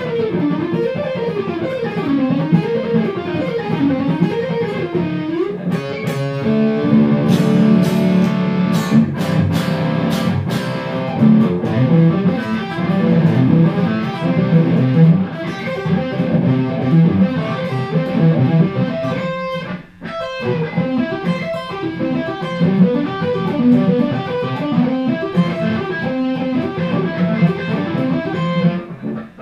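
Hardluck Kings Spider electric guitar, fitted with Seymour Duncan Nazgul (bridge) and Sentient (neck) pickups, played solo as shred-style lead. It opens with wavering, vibrato-bent notes, moves into fast runs of notes, breaks off briefly about two-thirds of the way through, and carries on riffing.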